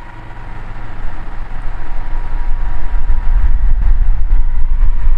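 Kyowa KW-6900 box fan running up to its third, highest speed: its rush of air grows louder over about three seconds, then holds steady and loud, with a deep rumble.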